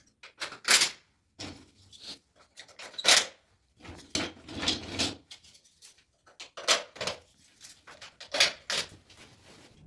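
Irregular sharp clicks and knocks as wall tiles are set and pressed into place and plastic tile-leveling clips and wedges are fitted in the joints between them.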